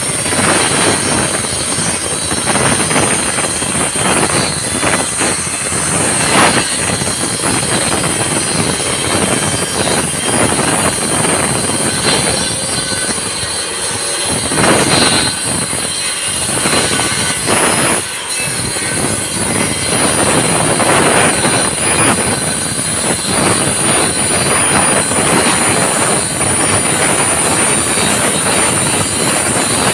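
Corded Bosch circular saw running and cutting through a plywood sheet: a steady high-pitched motor whine with the grinding of the blade in the wood, dipping briefly twice midway.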